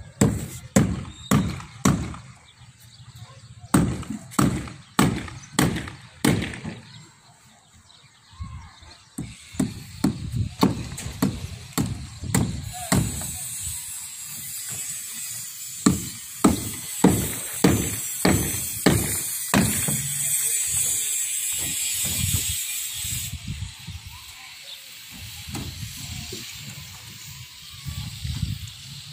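An irregular run of sharp knocks and clanks on steel slab formwork and rebar, about one or two a second, breaking off for a couple of seconds about a quarter of the way in. A steady hiss rises beneath them in the second half.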